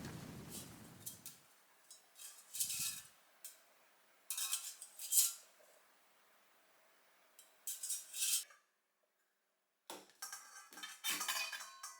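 Kitchen utensils and tableware being handled, with scattered clinks and rattles. About nine seconds in there is a second of dead silence, then more clinks that ring briefly.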